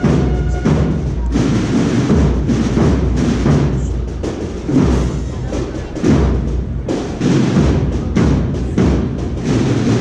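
Procession band music dominated by heavy drum beats.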